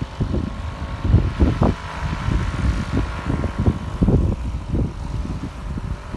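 Strong wind buffeting the microphone in irregular low gusts, over the faint steady tone of a paramotor's engine and propeller running.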